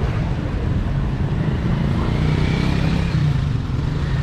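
A motor vehicle engine running steadily nearby with a low hum, amid street traffic noise.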